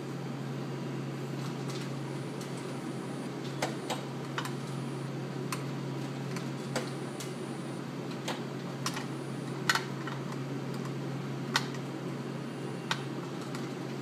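Steady low hum with about ten scattered light clicks and taps as hands handle and unhook the cervical traction halter's strap and its hardware on the spreader bar.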